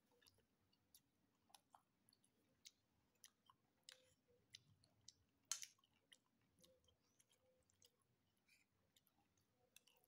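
A person chewing a mouthful of chicken satay with the mouth closed: faint, scattered soft clicks and smacks, with one louder click about five and a half seconds in.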